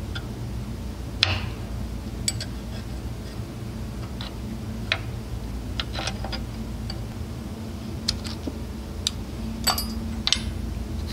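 Irregular light metallic clicks and ticks of a combination wrench working the bolt on an Eaton Fuller clutch's adjusting-ring lock tab, over a steady low hum.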